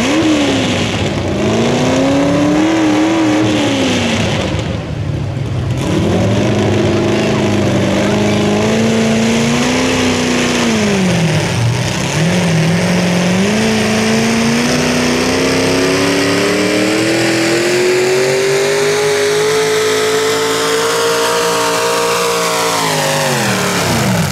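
V8 hot rod pulling tractor's engine running hard under load, its revs rising and falling, then climbing steadily for several seconds. Near the end the revs drop sharply as the throttle comes off.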